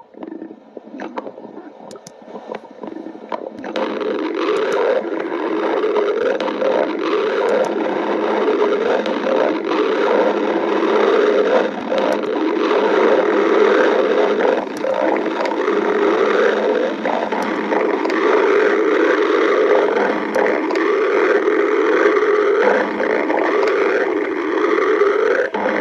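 Stomach growling: continuous, irregular gurgling and rumbling. It grows louder about four seconds in.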